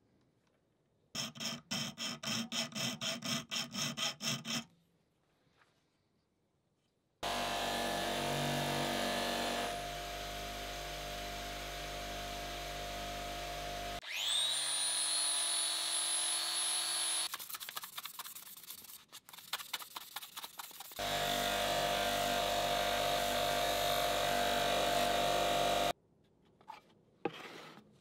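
Hand strokes of an abrasive on the steel blade clamped in a vise, a dozen or so even strokes at about three a second. Then a power tool's electric motor runs steadily, with a spell where it spins up and its whine rises and then holds steady.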